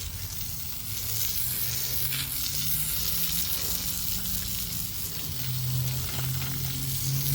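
A machine engine running steadily under a loud, even hiss; the low hum of the engine shifts up in pitch and grows louder about two-thirds of the way through.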